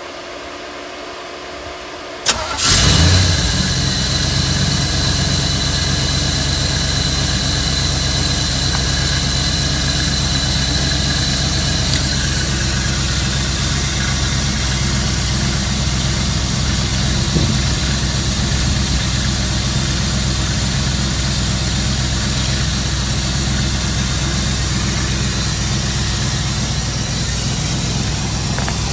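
A 1992 Camaro Z28's small-block V8 cold-starting on a freshly replaced distributor cap, rotor, ignition coil and ignition module. It cranks with a rising whine for about two seconds, catches with a sharp click and a sudden loud burst, then settles into a steady idle.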